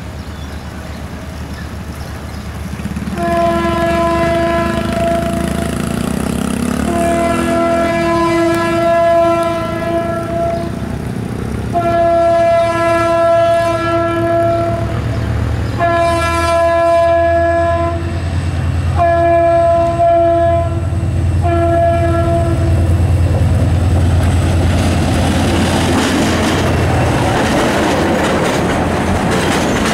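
EMD GT22CU diesel locomotive's horn sounding six blasts, three long then three shorter, over the low rumble of its engine, the warning for a level crossing. In the last few seconds the train of empty boxcars rolls past with clattering wheels.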